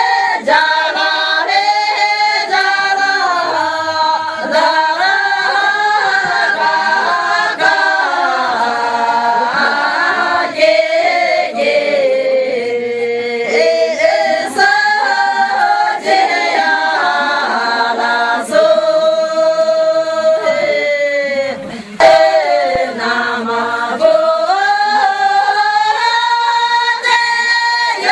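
A group of women singing together, unaccompanied, a melodic song with long held notes. There is a brief pause in the singing about three-quarters of the way through.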